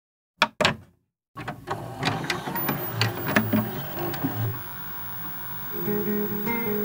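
Two sharp clicks, then a run of clicking and mechanical clatter. Music with held notes comes in near the end.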